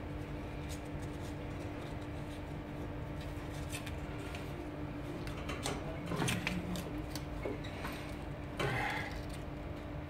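Faint scraping and clicking of a brass SharkBite push-fit shutoff valve being twisted and pushed by hand onto a copper pipe, a little louder about six seconds in and again near the end, over a steady low hum.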